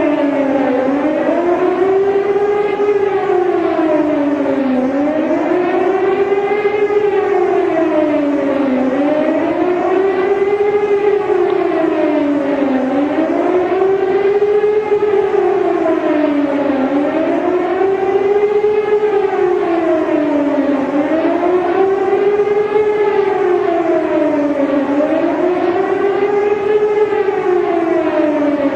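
Emergency warning siren wailing, its pitch rising and falling in a smooth cycle about once every four seconds, without a break.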